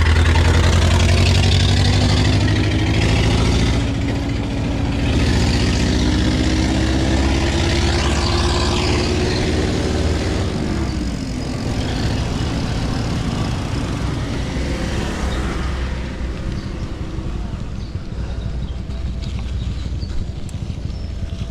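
Motor vehicle engine running close by in street traffic, its pitch rising slowly for about ten seconds and then dropping away, leaving a steady hum of traffic.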